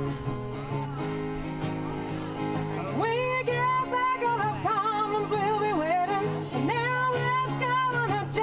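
Country song between sung lines: acoustic guitar and bass backing, with a wavering lead melody coming in about three seconds in.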